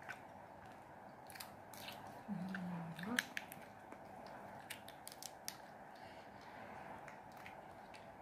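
Lychee shells crackling and snapping as they are peeled by hand, in scattered sharp clicks. A short hummed 'mm' from the eater a little over two seconds in.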